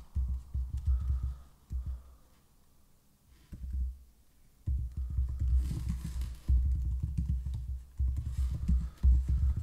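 Typing on a computer keyboard: quick runs of keystrokes that come through mostly as dull low thuds, with a pause of a couple of seconds partway through.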